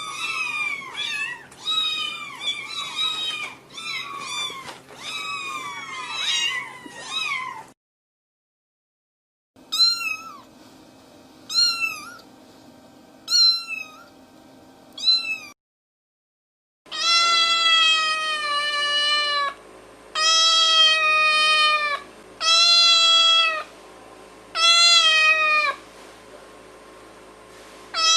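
Domestic cats meowing in three separate recordings. First comes a quick, crowded run of high meows that each fall in pitch. After a short silence come four short high meows about two seconds apart, then, after another gap, five long, lower, drawn-out meows of about two seconds each.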